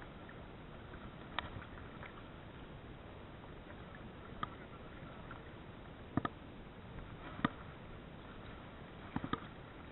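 Steady hiss of sea water and wind around a wading angler, with a handful of short sharp clicks spread through it, the last a quick cluster, while a spinning reel is cranked to retrieve a hooked fish.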